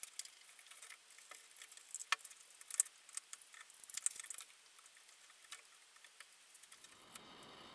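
Small clicks and rattles of plastic connectors and a speaker cabinet's plastic back panel being handled as cables are unplugged and the panel is worked loose, busiest in the first four or five seconds, then a few faint ticks.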